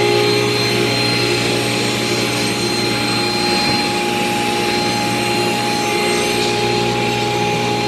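Grizzly G0623X sliding table saw running with the shop dust collector, a steady hum and whine, while a pine board is crosscut on the sliding table.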